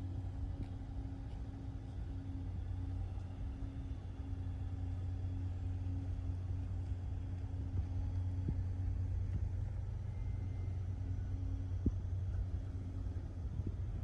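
Steady low rumble of a vehicle underway, with a faint steady hum that drops out about twelve seconds in.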